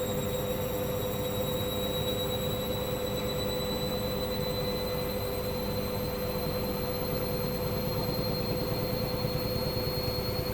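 Hoover washing machine on a spin cycle: a steady motor hum under a high whine that slowly rises in pitch as the drum gathers speed.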